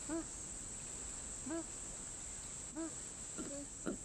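A steady high insect drone with a short, pitched, arching animal call repeated three times about a second and a half apart. Near the end a quick run of clicks and grunt-like sounds begins.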